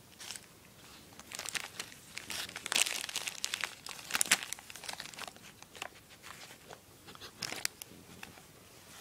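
Plastic chocolate wrapper crinkling and crackling in irregular bursts as it is handled at a dog's mouth, loudest about three to four and a half seconds in.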